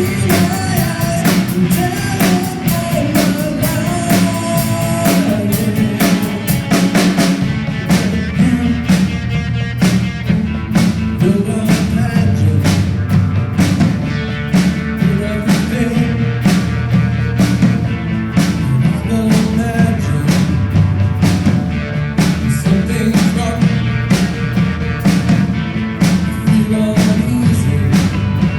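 Rock band playing live with drum kit, bass and guitar, a voice singing the melody at times.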